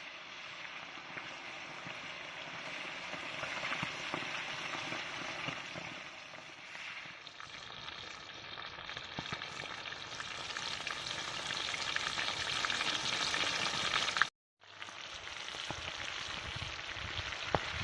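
Whole quail deep-frying in about a litre of hot oil: a steady sizzle with fine crackling. It breaks off completely for a moment about fourteen seconds in, then carries on.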